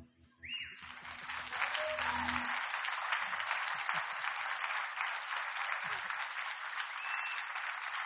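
Audience applause breaking out as the last acoustic guitar chord rings and dies away over the first couple of seconds. A short rising whistle comes from the crowd near the start and another near the end.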